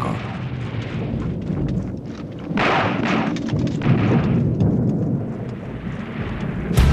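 Low rumbling with swelling bursts of noise about three and four seconds in and a sharp bang near the end, like distant explosions.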